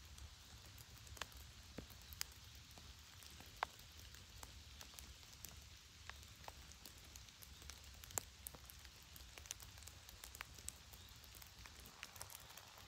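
Steady rain in a spruce forest: a faint hiss with scattered sharp ticks of drops hitting needles and leaves at irregular times.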